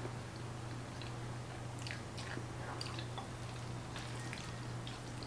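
Pasta being eaten: scattered soft clicks of a wooden fork and spoon against a ceramic bowl as the pasta is twirled, with chewing. A steady low hum runs underneath.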